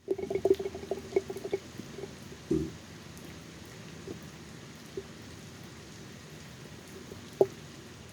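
Raindrops striking a phone directly, each drop a short pop on its body and microphone. A quick flurry of drops comes first, then a heavier knock about two and a half seconds in, then only a few single drops over a steady hiss of rain.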